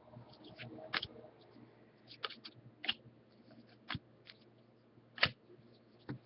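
Baseball trading cards being flipped and set down one at a time: sharp, irregular snaps and clicks of card stock, about one a second, over a faint steady hum.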